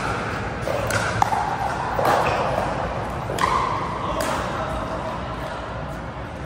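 Pickleball paddles striking the ball: several sharp, ringing pops in the first four seconds, echoing in a large indoor hall, then only the hall's background hum.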